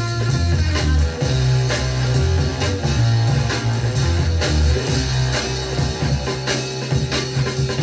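A garage funk 45 single playing on a turntable: electric guitar over a prominent bass line and a steady drum beat.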